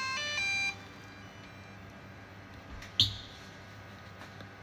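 DJI Mavic 2 Pro powering on: a quick run of electronic beeps stepping in pitch, lasting under a second, as the aircraft starts up after its repair. A single sharp click follows about three seconds in.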